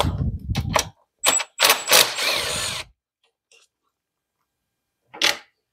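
Milwaukee 18V cordless 1/4-inch hex impact driver hammering briefly as it spins out an intake-manifold bolt. This is followed by a few sharp metallic clicks and a second short rattling burst, with one more click near the end.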